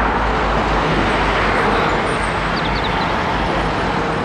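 Double-decker bus driving along a street, with steady engine and road traffic noise.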